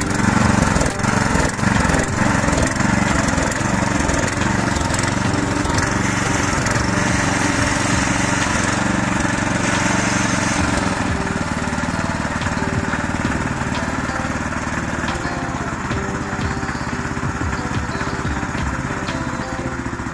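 STIHL MH 700 power tiller's single-cylinder four-stroke petrol engine running steadily on its first start after assembly. It is a little louder in the first few seconds, then settles to a slightly lower, even run from about halfway.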